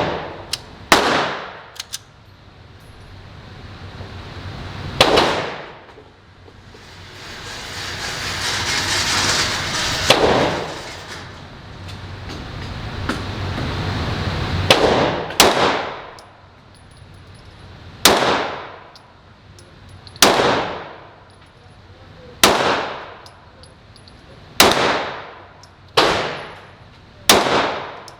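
Semi-automatic pistol fired in slow single shots on an indoor range, about ten in all, each a sharp bang followed by a long ringing echo. The first shots are several seconds apart and the later ones come about every two seconds. A rushing noise swells and fades in the middle.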